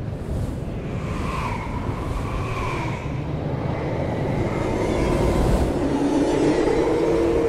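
Action-film sound effects: a continuous deep rumble with a few wavering tones over it and a steadier tone building near the end.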